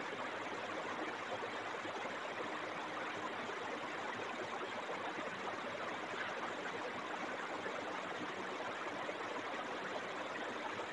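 Steady, even background hiss with no distinct events: room tone.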